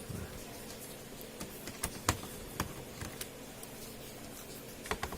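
Light, irregular clicks and ticks of a screwdriver undoing the screws on a laptop's plastic bottom cover, with a few sharper clicks around two seconds in and near the end.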